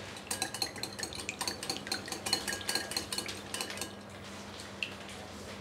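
Wire whisk beating raw eggs in a glass bowl, its wires clicking rapidly against the glass; the clicking stops about four seconds in.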